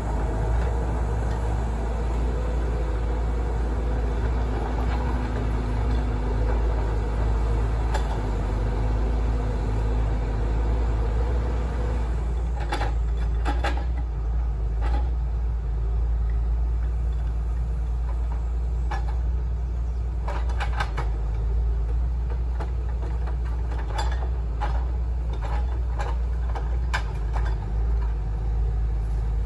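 2003 Fabtek forwarder's diesel engine running steadily with a low hum and a hydraulic whine that stops about twelve seconds in. After that, scattered clanks and knocks come from the boom and grapple.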